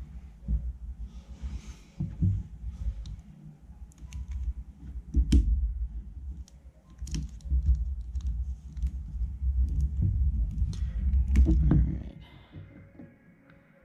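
Drafting-table handling noise while inking: low, uneven thumps and rumble as hands and pens work on the table, carried straight into the camera clamped to it, with several sharp clicks of Micron pen caps and pens being handled. It settles to near quiet about twelve seconds in.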